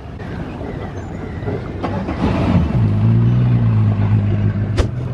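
An outboard boat motor is cranked and catches between two and three seconds in, then idles steadily with a low, even hum. A single sharp click comes near the end.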